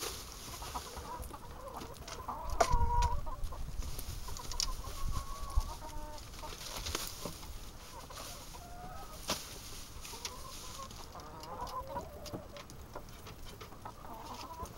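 Domestic hens clucking on and off inside a wire-mesh coop, with scattered sharp clicks around them.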